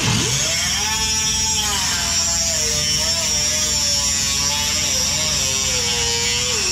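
Cut-off wheel grinding through sheet metal, a steady high whine with a hiss, its pitch wavering as the wheel bites into the cut.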